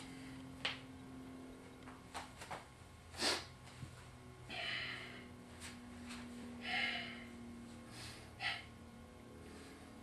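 A man breathing in and out heavily twice, about a second each, while moving into push-up position on an exercise mat, with a few short soft knocks and taps of hands and knees on the mat. A faint steady hum runs underneath.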